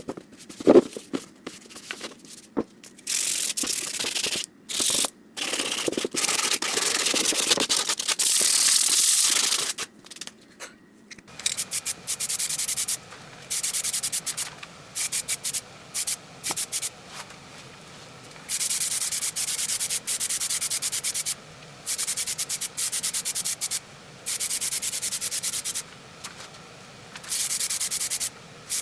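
220-grit sandpaper rubbed back and forth by hand over a helmet's surface, scuffing it in preparation for primer. It comes in runs of quick rasping strokes lasting a second to a few seconds, with short pauses between.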